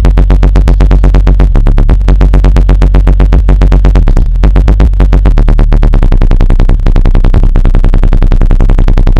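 Electronic music with a fast pulsing beat and very heavy bass, played loud through a car audio system's two TNT 10-inch dual-voice-coil subwoofers driven by a 4480 amplifier, heard inside the car.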